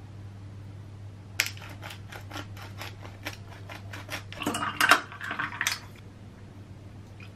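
Hand-twisted spice grinder clicking in a quick, even run of about four to five clicks a second for around four seconds, with louder, denser grinding near the middle. A steady low hum runs underneath.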